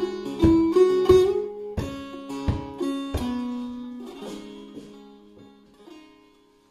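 Iranian setar played clawhammer style, with downward brushed plucks across the strings about every half second. After about three seconds the playing stops and the last notes ring on and fade away as the tune ends.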